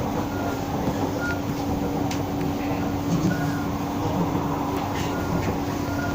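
Singapore MRT train on the North-South Line running: a steady rumble with a constant hum beneath it.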